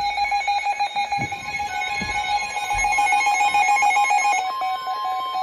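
Weather alert radio sounding its electronic alarm for a severe thunderstorm warning: a loud, rapidly pulsing beep that changes pitch about four and a half seconds in.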